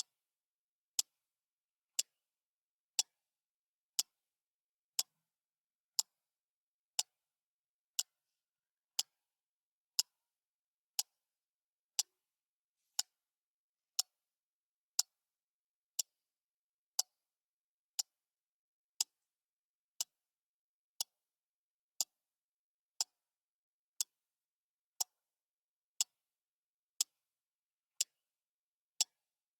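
A clock ticking steadily, one sharp tick each second.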